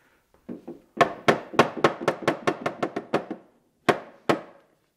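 Quick taps on the side of a plywood box, knocking it into alignment against the box clamps at its corner: a fast run of about ten taps, then two more near the end.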